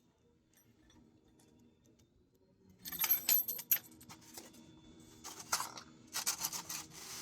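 Aerosol chain-cleaner can being handled and sprayed onto a motorcycle chain: after a faint start, rattly hissing bursts begin about three seconds in and come again in a second cluster near the end.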